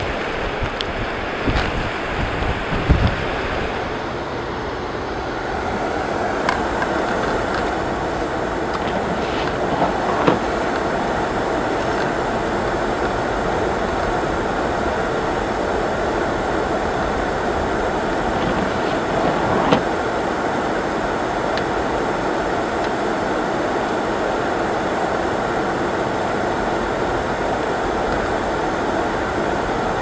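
For the first few seconds, blizzard wind gusts buffet the microphone. Then comes a steady rush of car road and tyre noise, heard from inside the cabin while driving on a snow-covered street.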